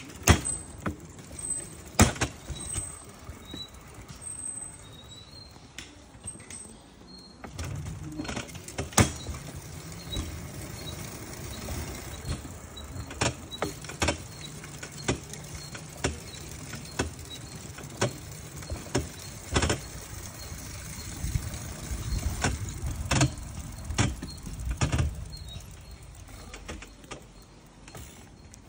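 Pedal-powered rail bike rolling along steel rails: its wheels rumble on the track, the rumble building about a quarter of the way in, with sharp clicks coming roughly once a second.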